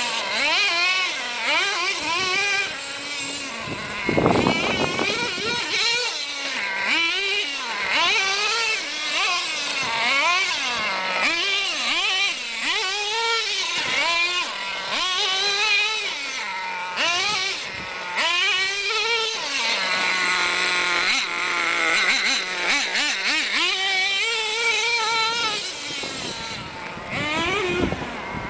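Tamiya TNX 5.2 nitro RC monster truck's small glow-fuel engine revving up and down over and over as it is driven, with a brief burst of noise about four seconds in and a short steadier, lower-pitched stretch about two-thirds of the way through.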